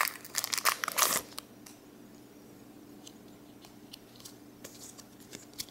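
Pokémon booster pack's foil wrapper crinkling and tearing open for about the first second. After that, only faint rustles and light ticks of the trading cards being handled.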